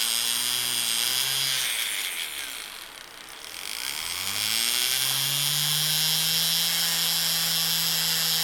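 Small electric rotary tool motor running, winding down about two seconds in, then spinning back up about four seconds in and holding a steady speed.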